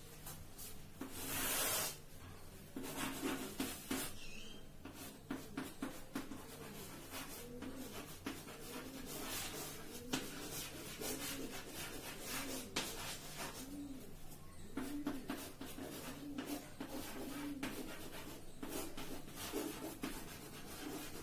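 Chalk writing on a blackboard: a run of short scratches and taps as letters are written, with a louder rasping stroke about a second and a half in.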